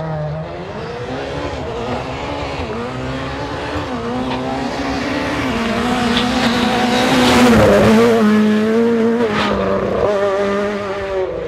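Rally car engine revving hard on a gravel stage, its pitch climbing and dropping back again and again through gear changes, loudest as it passes close about seven to eight seconds in. A sharp crack comes just after nine seconds.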